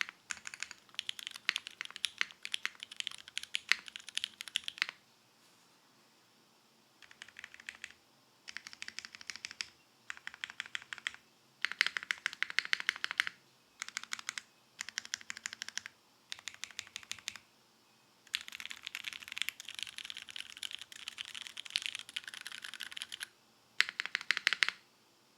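Typing on a custom mechanical keyboard with lubed vintage Cherry MX Black linear switches on an O-ring-mounted aluminium plate under GMK keycaps. The keys go down in quick runs of a few seconds, broken by short pauses, the longest about five seconds in.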